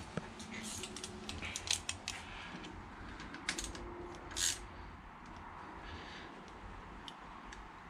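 Small metallic clicks and light taps of a bolt and hand tools as a cam chain tensioner mounting bolt is fitted by hand into the engine. The clicks come in irregular clusters, busiest in the first two seconds and again around the middle, with a few single ticks later.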